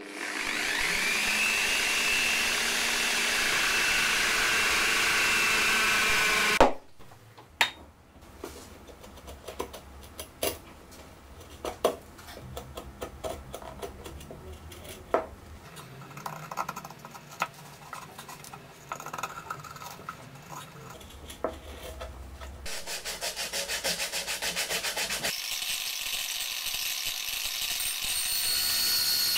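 An angle grinder fitted with a wool buffing pad runs for about seven seconds, its whine rising as it spins up and then holding steady. It stops abruptly, and a steel blade scrapes shavings off wood, with scattered sharp knocks. For the last several seconds an angle grinder with a thin cutting disc buzzes steadily against a wooden axe handle.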